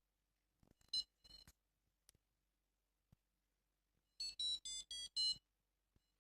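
FreeFly Vario variometer beeping: a short high beep about a second in, then a run of five quick beeps, about four a second, near the end. Short repeated beeps like these are the climb tone a vario sounds in rising air.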